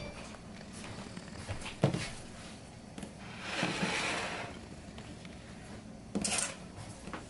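Ceramic dinner plates being handled on a wooden counter. A single knock comes about two seconds in, then a scraping slide as the plates are pushed across the wood around four seconds, and a brief clatter near the end.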